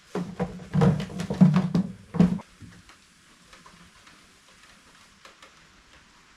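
Engine oil glugging as it is poured from a container into a new oil filter, a quick irregular run of glugs that stops about two and a half seconds in. Faint scattered ticks follow.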